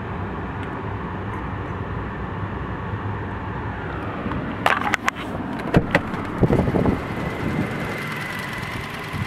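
The 2010 Toyota Tacoma's engine idles with a steady hum, heard from inside the cab. About five seconds in come a few sharp clicks and a couple of thumps as the truck's door is opened and shut.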